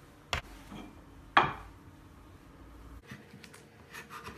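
Sharp knocks of hard tools on a wooden slab, a small one just after the start and a louder one with a short ring about a second and a half in, then a run of light ticks and scrapes near the end as a small metal blade works hot-melt polyamide filler in a crack.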